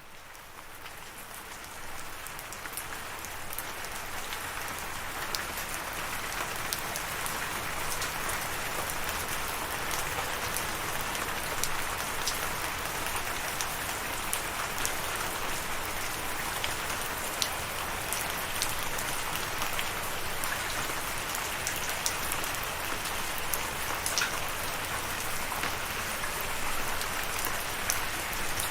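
Steady rain falling, with many individual drops pattering sharply over an even hiss. It fades in from silence over the first few seconds, then holds level.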